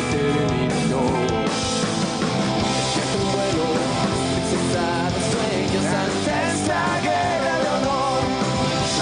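Rock band playing live, with electric guitar, bass, drums and keyboard, and a man singing over it.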